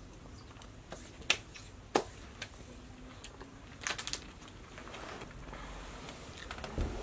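A few scattered sharp clicks and light crinkling from plastic gummy candy bags being handled on a table, with a low thump near the end.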